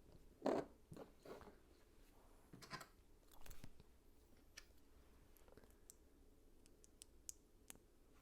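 Plastic LEGO pieces being handled and pressed together: a few louder clacks and rattles in the first few seconds, then scattered light clicks.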